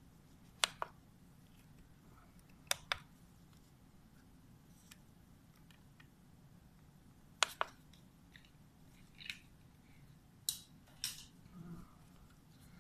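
Dissection instruments clicking: several sharp clicks, the first three in close pairs, then a few single ones near the end.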